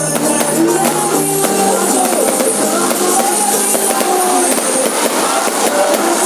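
Music with singing, guitar and drums, loud and steady.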